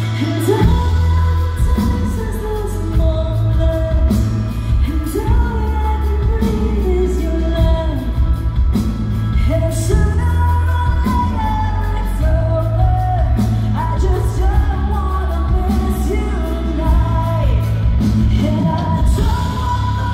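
Female singer singing a rock ballad live over an amplified band with a steady bass line, heard from within an arena crowd.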